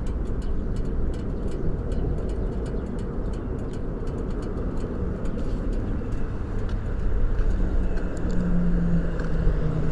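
Harley-Davidson Shovelhead V-twin engine of a 1983 FLH80 idling steadily, with a light regular ticking over its low running note. A steady hum joins in about seven and a half seconds in.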